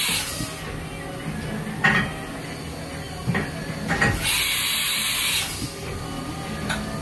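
Haas VF-1D CNC mill's umbrella tool changer doing a tool change: a long hiss of air from the spindle's tool release about four seconds in, with the tail of another at the start, and short clunks of the carousel and spindle moving in between.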